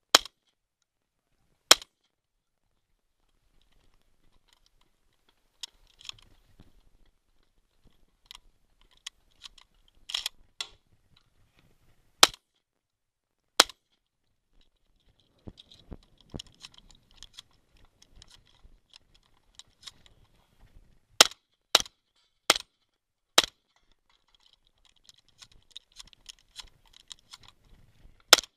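Shotgun fired from the shooter's own position, about a dozen sharp shots at uneven intervals, including a fast string of four. Quieter clicking and rattling of gun handling fills the gaps between shots.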